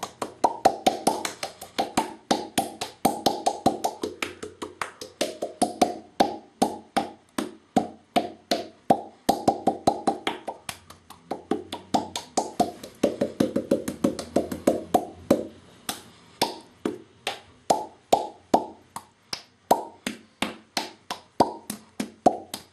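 A man making mouth pops over and over, about three to four sharp hollow pops a second. Their pitch wanders up and down as the mouth changes shape, with a few short pauses.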